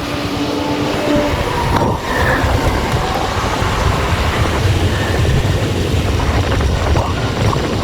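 Steady wind and road noise on an action camera's microphone while cycling: a dense, even rush, heaviest in the low end.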